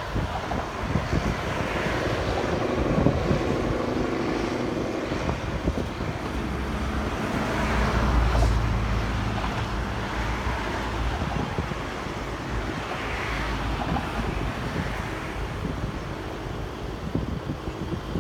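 Road traffic passing close by, with a low rumble that swells and fades about eight seconds in as a vehicle goes past, and wind buffeting the microphone.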